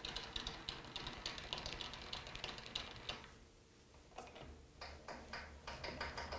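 Lathe handwheels cranked by hand: the cross-slide feed screw and apron gearing give a fast, faint run of ticking. It stops briefly about three seconds in, then the ticking resumes, and a low hum comes in near the end.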